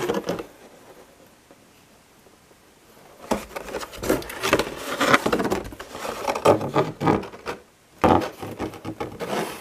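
Clear plastic clamshell packaging of a boxed diecast model aircraft being handled and turned over, rubbing and scraping against cardboard. A few quiet seconds, then a long run of crinkling and scraping, a short break near the end, and more.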